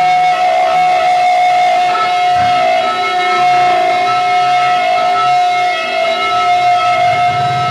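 Live rock band with loud distorted electric guitar, one steady high guitar tone held over a dense wash of noise.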